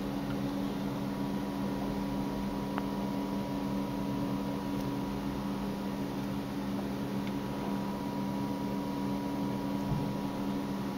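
Steady low hum with a faint high whine over it, like a fan or electrical hum, with a faint tick about three seconds in.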